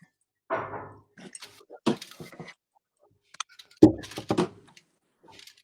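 Kitchen utensil clatter: spoons scraping and knocking against pots and pans as a chocolate mixture is scooped out. There is a short scrape about half a second in, then scattered knocks, the loudest about four seconds in.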